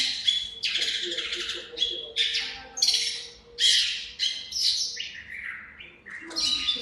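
Small songbird singing a run of short, high, scratchy phrases, one after another with brief gaps.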